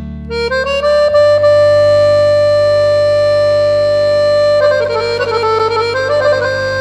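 Background music: a lead melody climbs into a long held note, breaks into a quick run of short notes about five seconds in, then settles on another held note, over sustained low bass notes.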